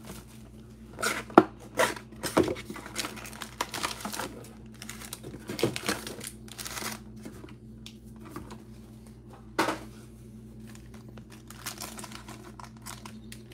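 A cardboard trading-card hobby box being opened and its foil-wrapped card packs pulled out and handled: crinkling and rustling, with scattered sharp clicks and taps, the loudest about a second and a half in and again near the end.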